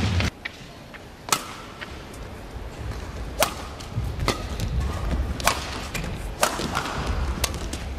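Badminton rackets striking a shuttlecock back and forth in a rally: sharp cracks roughly a second apart, over a low arena background.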